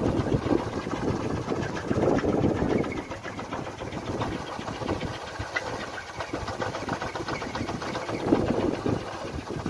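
Kolecer, a wooden propeller windmill on a pole, spinning in the wind with a rapid, engine-like rattling drone. It swells and eases with the gusts: louder in the first few seconds and again near the end.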